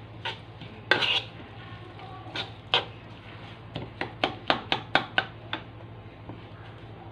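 Metal fork stirring a wet mix of chopped herbs and sauce in a wooden bowl, knocking and scraping against the bowl. A few scattered clicks come first, then a quick run of about four or five clicks a second near the middle, which stops well before the end.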